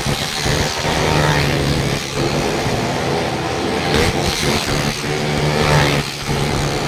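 Steady motor drone with evenly spaced overtones, over dense, busy background noise.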